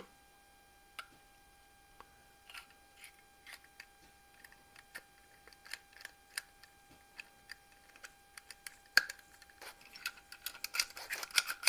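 Scattered light clicks and taps as small parts of a Daisy 188 BB pistol are handled and oiled by hand, with a sharper click about nine seconds in and a quicker run of clicks near the end. A faint steady hum sits underneath.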